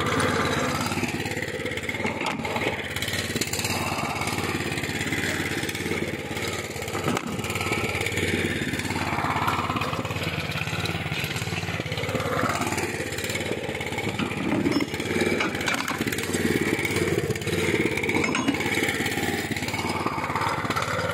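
Mini tiller's small petrol engine running steadily at low throttle while it warms up after a choked cold start.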